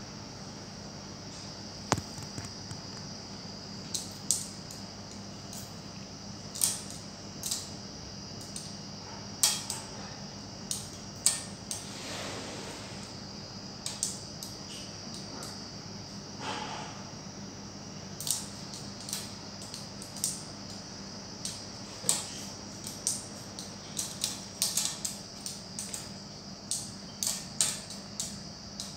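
Kittens at play: scattered light clicks, taps and scratches from their claws on cloth, tile and a metal ladder pole, coming irregularly and more often in the second half, over a steady high-pitched whine.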